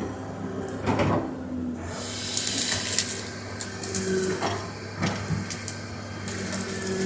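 Excavator working as it digs: its engine runs with a steady hum, with a high hiss about two seconds in and again shortly after, and a few short knocks.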